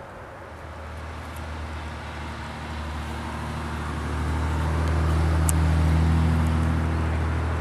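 A motor vehicle passing: a low engine and road rumble that swells, is loudest about six seconds in, then starts to fade.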